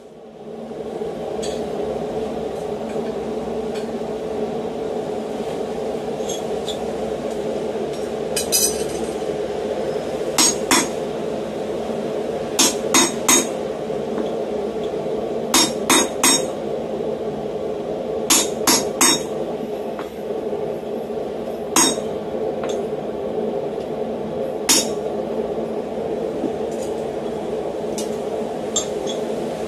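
Hand hammer striking a cutting chisel through flat bar stock on a swage block, with sharp ringing metallic blows, mostly in clusters of two or three. They start about a quarter of the way in, over a steady hum.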